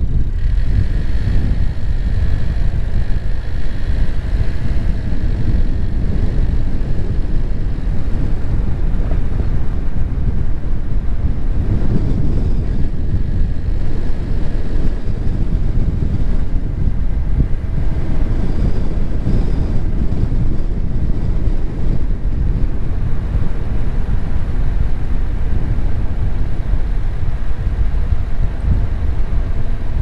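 Car driving along: a steady low rumble of road and wind noise, with wind buffeting the microphone.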